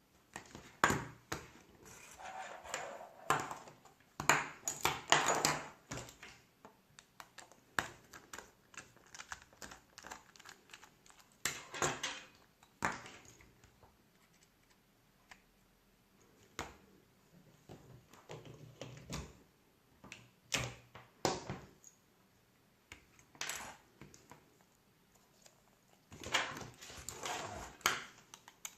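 Irregular clicks, taps and short scrapes of small hard objects being handled, with a few louder clusters of rattling and scraping.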